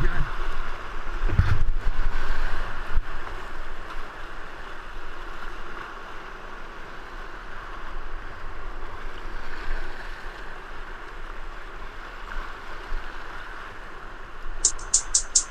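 Whitewater rushing and splashing around a kayak in a rapid, with wind on the action camera's microphone; the splashing is loudest in the first few seconds. Near the end a fast, high ticking beat comes in.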